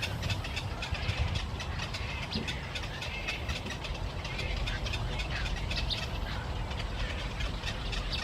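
A flock of small birds chirping and chattering, many short overlapping calls, over a steady low rumble.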